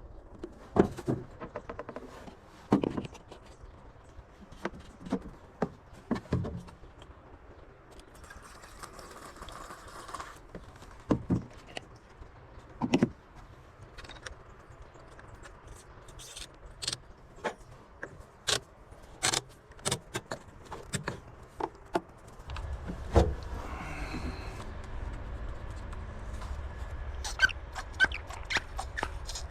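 Irregular metallic clicks, clinks and knocks of hand-held metal parts or tools being handled. A steady low rumble sets in near the end.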